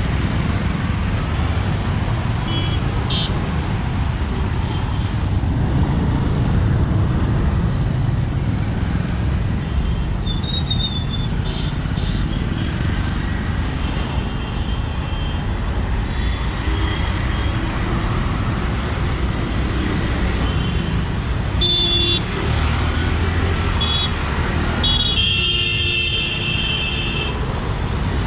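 Dense road traffic of cars, motor scooters, motorcycles and auto-rickshaws running past in a steady rumble, with scattered short horn toots and one longer horn blast of about two and a half seconds near the end.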